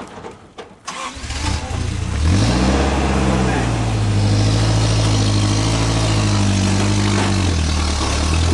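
Rock-crawler buggy's engine drops nearly silent for a moment, picks up again about a second in, then revs up sharply about two seconds in. It holds high revs with small dips under load as the buggy climbs a rock ledge.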